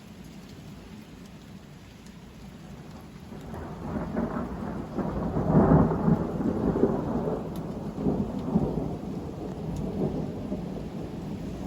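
Thundersnow: thunder during a snowstorm. It rises into a long rolling rumble about three and a half seconds in, is loudest around the middle, then slowly trails off.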